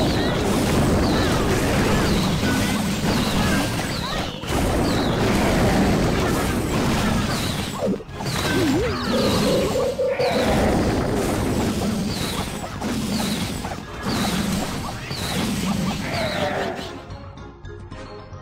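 Loud, dense music that drops in level near the end.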